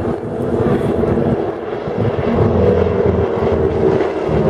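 Three North American Harvard trainers flying past in formation, their Pratt & Whitney R-1340 Wasp radial engines and propellers running steadily and loudly.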